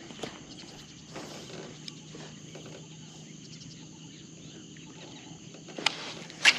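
Insects chirring steadily in the background, with two sharp knocks about half a second apart near the end.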